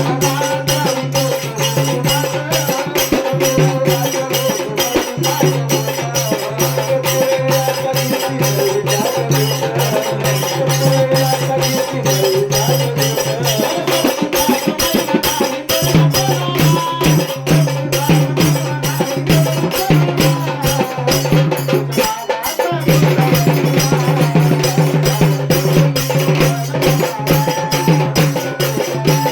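Marathi folk devotional song music: a fast, steady percussion beat with shaker-like strokes over a sustained low drone. The drone drops out briefly about two-thirds of the way through.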